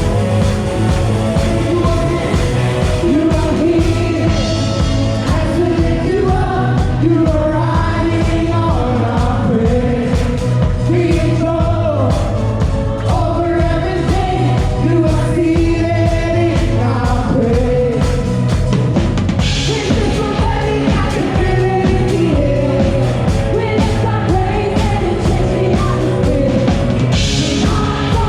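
Worship band playing loud rock-style music with singing over a driving drum beat.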